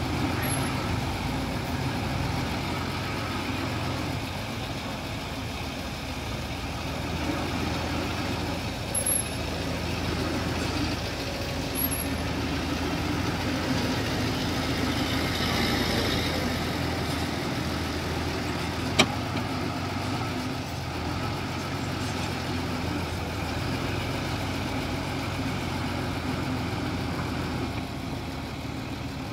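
Heavy diesel engine of earthmoving machinery running steadily, with one sharp click a little past the middle.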